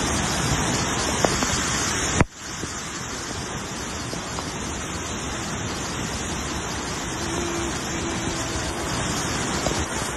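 Muddy flash-flood water (a mudflow) rushing in a dense, steady torrent. It breaks off for a moment about two seconds in, then goes on a little quieter.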